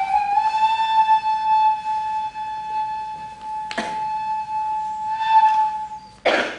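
Nohkan, the bamboo Noh flute, holding one long high note that bends slightly upward at the start and stops about six seconds in. Two short sharp noises break in, one near the middle and one just after the note ends.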